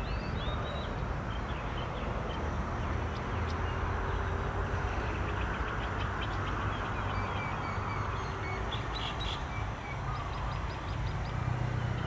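Birds chirping in short, quick runs of high notes over a steady low hum of distant engines.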